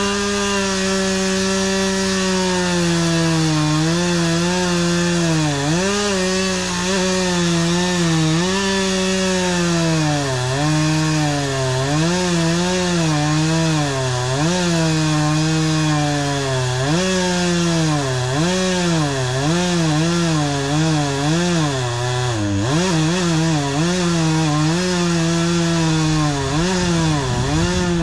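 Chainsaw cutting into a pine tree. The engine runs at high speed, and its pitch dips repeatedly as the chain bogs in the cut and then recovers.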